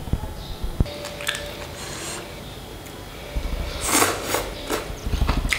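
Noodles being slurped and chewed, with a few short, sharp slurps about four seconds in.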